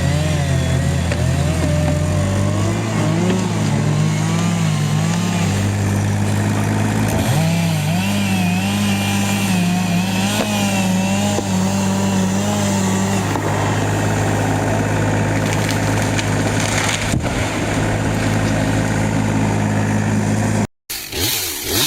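Two-stroke chainsaw running under load as it cuts through a tree trunk, its engine pitch wavering up and down. The sound breaks off abruptly near the end.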